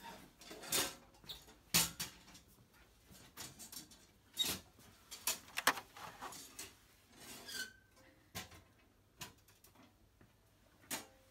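Irregular short rustles, scrapes and light knocks of objects being handled and shifted on wooden shelves.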